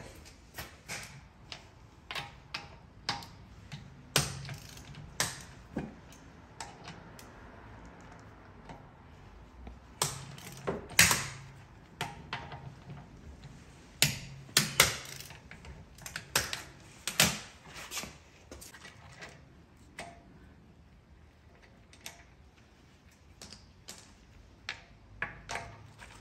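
Irregular clicks, taps and knocks of hand tools and metal parts being handled during work on a car's rear shock absorbers, with a few sharper knocks about 11 and 15 seconds in.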